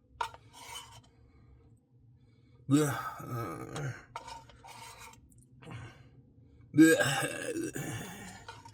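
A man's voice makes two loud drawn-out vocal outbursts, about three and seven seconds in, with soft mouth clicks between them.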